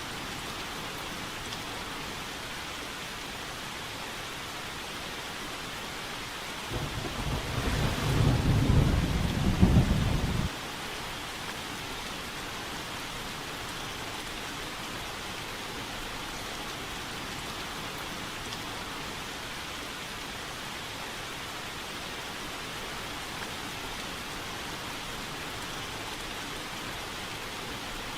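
Steady rain falling on a window pane, with a roll of thunder about a quarter of the way in that builds over a few seconds and then cuts off suddenly.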